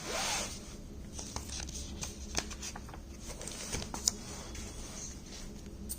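Quiet room tone with a low steady hum, a brief rustle right at the start, and a few faint scattered clicks.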